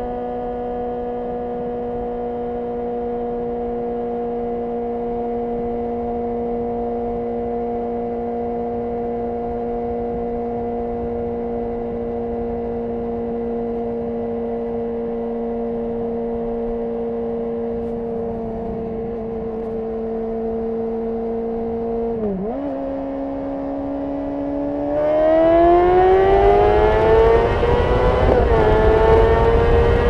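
Honda CBR600RR's 599 cc inline-four through a Yoshimura RS5 exhaust, holding a steady note at cruising speed for most of the time. The pitch dips briefly and comes back a little higher. Then the throttle opens and the engine note climbs steadily and gets louder, with wind noise rising under it and another short dip near the end.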